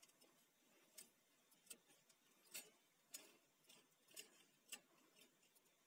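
Faint light ticks at uneven intervals, roughly two a second, from a computer power-supply cooling fan being spun round by hand to work a drop of motor oil into its bearing.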